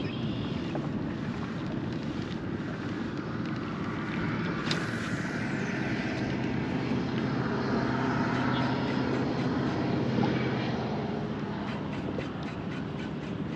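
A distant engine drones steadily, growing louder toward about ten seconds in and then easing off, over wind on the microphone.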